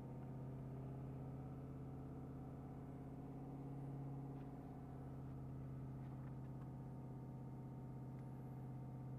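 Ford 6.7 Powerstroke V8 turbo-diesel held steady at about 2,000 rpm, a low even drone heard from inside the cab. The raised rpm is heating the exhaust for a reductant (DEF) system test.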